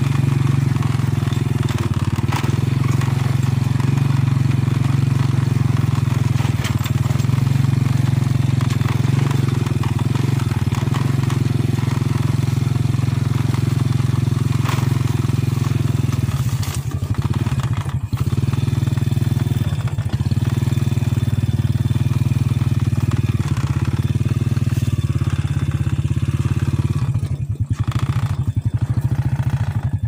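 Motorcycle engine running steadily under way, easing off briefly about halfway through and turning uneven near the end as it slows.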